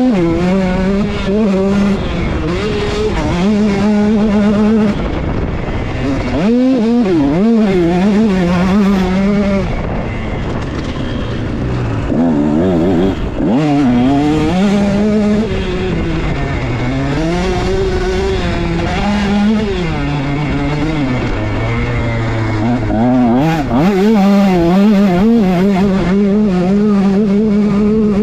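KTM 150SX two-stroke single-cylinder motocross engine under hard riding: its pitch climbs with each burst of throttle and drops off on the chop, again and again, with spells of held revs. Wind rushes over the microphone throughout.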